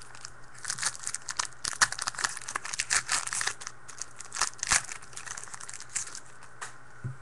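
A 2013 Panini Rookies & Stars football-card pack being torn open, its wrapper crinkling and crackling in a dense run of sharp crackles for about six seconds, then stopping shortly before the end.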